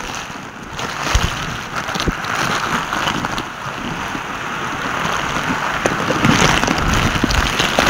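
Heavy rain pouring down onto stone steps and paving, a dense steady hiss that grows louder in the second half, with a few low thumps.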